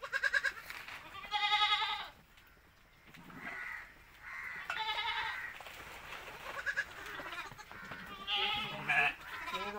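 Goat kids bleating: about four high, quavering bleats, each under a second long, a few seconds apart.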